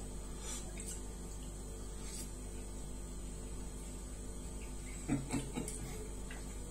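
A person eating pounded yam and egusi soup by hand, with a few soft chewing and mouth sounds about five seconds in, over a steady low hum and faint scattered clicks.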